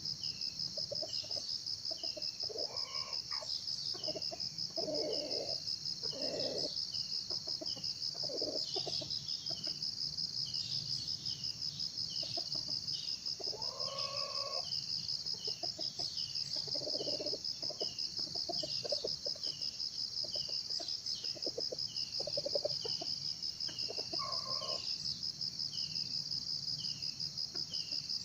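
Junglefowl giving low, cough-like clucking calls in short repeated bursts, with a longer, higher call three times, over a steady high-pitched insect chorus.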